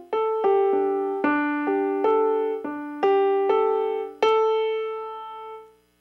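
Piano music played from a MIDI keyboard: about ten chords struck at roughly two a second, each decaying. The last chord, about four seconds in, is held and dies away near the end.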